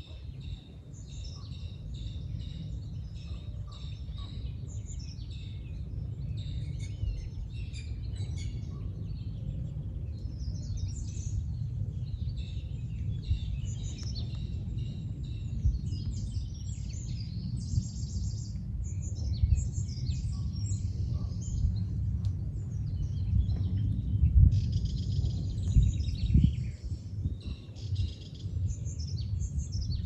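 Many wild birds chirping and singing at once, their calls overlapping throughout, over a steady low rumble.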